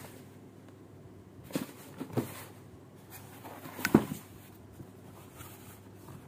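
Boxed toy packaging being handled: a few short knocks and rustles, the loudest cluster about four seconds in.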